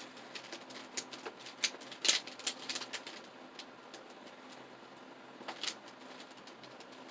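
Plastic clicks and clacks of a 3x3 mirror cube being turned by hand, in irregular bursts with short pauses between them; the mirror cube is stiff to turn.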